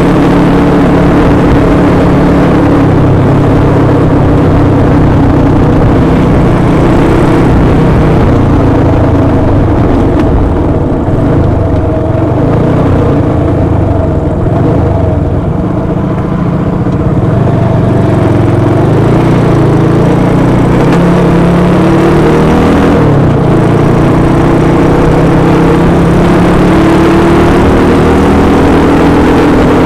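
Honda Win 100's single-cylinder four-stroke engine running under way, easing off for several seconds in the middle, then pulling up through the revs again.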